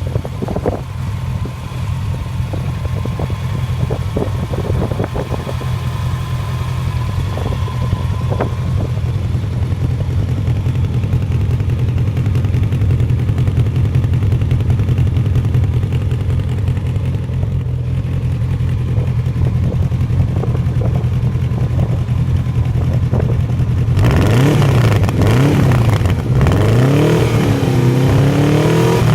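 Honda CB Seven Fifty motorcycle's air-cooled inline-four engine idling steadily, then, about twenty-four seconds in, revved several times, its pitch rising and falling with each blip of the throttle.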